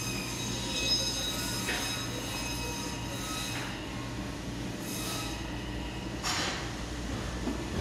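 Supermarket aisle ambience: a steady low electrical hum with several faint, steady high-pitched whining tones, broken by three brief swishing noises.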